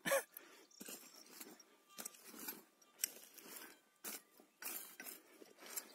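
Loose soil being scraped and knocked back into a hole with a digging tool: a string of irregular crunching scrapes and knocks.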